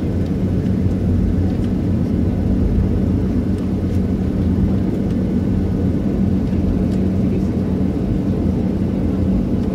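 Jet airliner cabin noise heard from a window seat over the wing while the plane taxis: a steady low engine rumble with a constant hum running under it.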